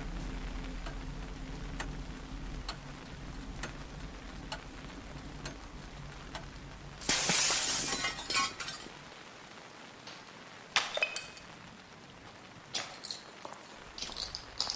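Glass being smashed about seven seconds in, with shards tinkling down for a second or two, then a few scattered clinks of glass. Before the crash, a low drone with a faint tick about once a second fades out.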